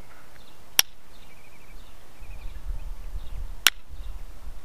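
Two sharp clicks about three seconds apart: an antler billet striking a punch set on the edge of a stone arrowhead, knocking off flakes in indirect-percussion flintknapping. Faint bird chirps run underneath.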